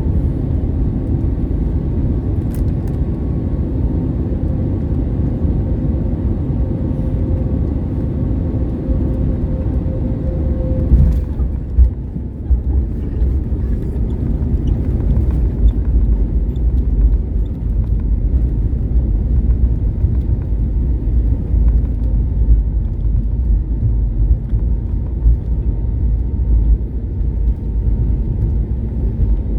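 Cabin noise of an Airbus A320neo with CFM LEAP-1A engines rolling along the runway after landing: a steady low rumble from the wheels and engines with a humming engine tone. About eleven seconds in there is a thump, and the humming tone drops away, leaving the rumble.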